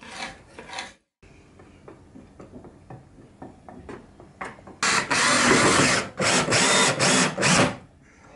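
Cordless drill driving screws through a plywood corner brace into a timber frame, in a few short loud runs that start about halfway through; before that, quiet knocks and scrapes of the wood being handled.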